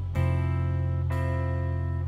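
Background music: guitar chords strummed about once a second over a steady low bass.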